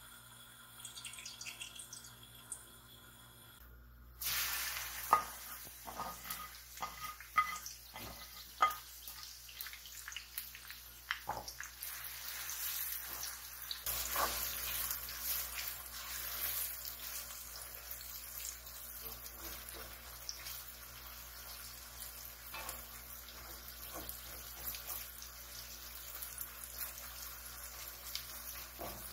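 Kitchen cooking sounds: a steady hiss sets in suddenly about four seconds in and carries on, with a handful of sharp clinks of a utensil against cookware in the seconds after it starts.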